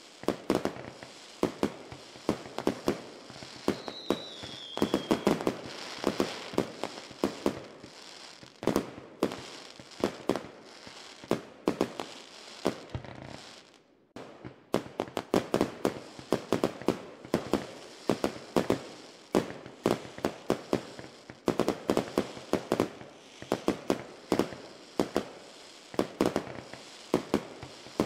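Fireworks going off: many sharp bangs and pops in quick, irregular succession, with a brief falling whistle about four seconds in and a short lull about halfway through.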